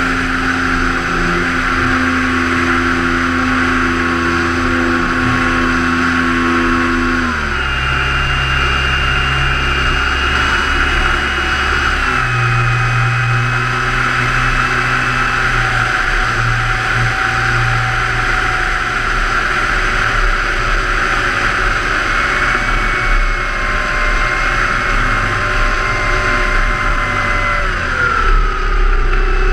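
Onboard sound of a large RC Mitsubishi A6M Zero scale model's motor running steadily under wind rush. Its pitch steps to a new setting twice, then falls near the end as it throttles back to land.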